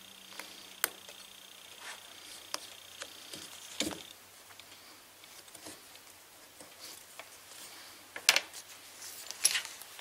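Hand work on carburetor parts and a paper gasket: scattered light clicks, taps and rustling, with a sharper knock a little after eight seconds in.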